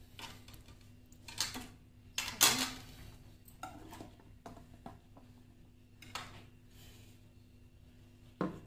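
Plates and kitchen utensils being handled: a series of short clinks and knocks, the loudest clatter about two and a half seconds in and another just before the end.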